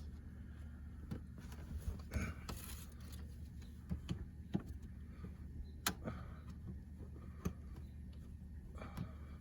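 Scattered sharp clicks and knocks of plastic seat-mount trim covers being pried off their clips and handled, over a steady low hum.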